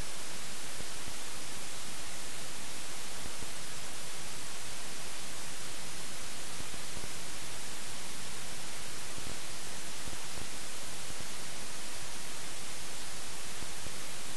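Steady electronic static hiss, even and unchanging and strongest in the high frequencies. It is the noise of a failed camera audio track that recorded no actual sound.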